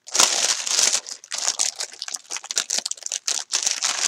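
Clear plastic bag of diamond-painting drill packets crinkling in irregular crackly bursts as hands handle it. Loudest just after the start and again near the end.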